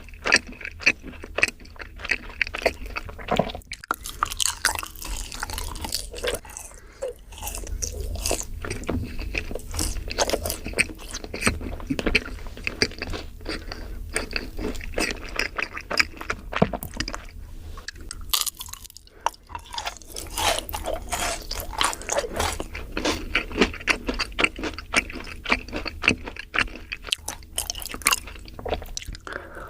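Close-miked chewing of yakgwa, a deep-fried Korean honey cookie: many irregular short crunches and sticky, wet mouth sounds, with brief pauses between bites.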